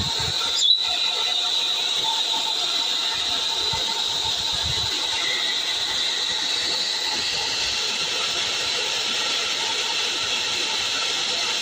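Hair dryer running steadily: a constant rush of air with a high whine from its fan motor. There is a brief interruption under a second in.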